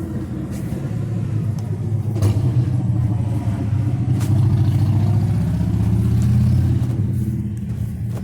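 Motor vehicle engine running with a low, steady rumble, growing louder through the middle and easing off near the end.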